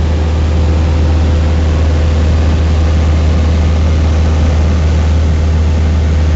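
Cessna 172RG Cutlass's four-cylinder Lycoming O-360 engine and propeller in cruise flight, a loud, steady low drone heard from inside the cabin.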